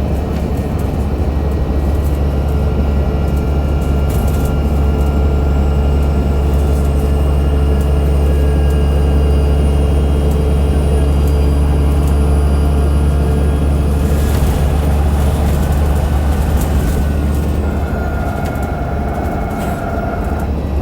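Alexander Dennis Enviro500 MMC double-decker bus on the move, heard from on board: a steady low drone from its Cummins ISL 8.9-litre diesel, with thin whining tones over it from the drive axle.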